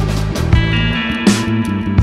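Background music: a track with held pitched notes and a regular percussive beat.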